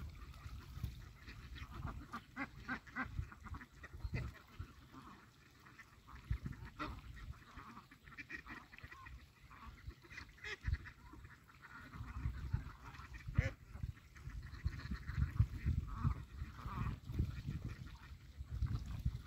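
A flock of domestic ducks quacking: many short, overlapping calls, with a low rumble underneath that grows heavier in the second half.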